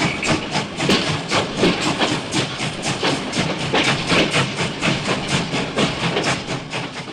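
A fast, even mechanical clatter of about five or six strikes a second from a small motorised model machine. It fades away at the very end.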